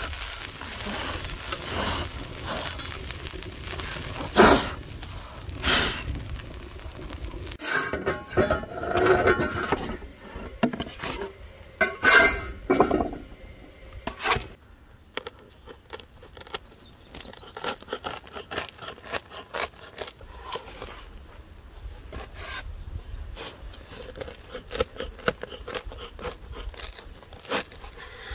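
A metal spatula scrapes calzones off an iron griddle plate onto a wooden peel, with several sharp scrapes and knocks. Then a knife saws through the crisp calzone crust against a wooden board in quick, repeated strokes.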